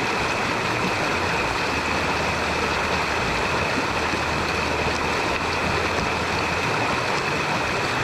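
Small rainforest stream cascading over mossy rocks close by: a steady rush of water.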